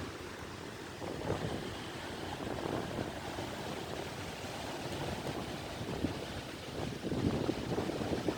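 Sea waves washing onto the shore, a steady rush of surf that swells a couple of times, with wind buffeting the microphone.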